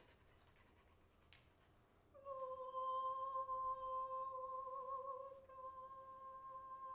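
Faint rustling and clicks, then, about two seconds in, a single high note around C5 begins and is held steady with a slight waver. It breaks with a click a little after five seconds and continues somewhat softer.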